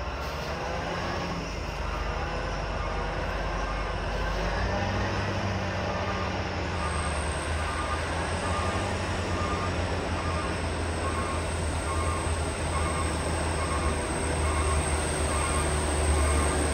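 Heavy diesel truck engine labouring on a steep climb, a steady deep drone that steps up in pitch about four and a half seconds in. The truck is short of power for the hill.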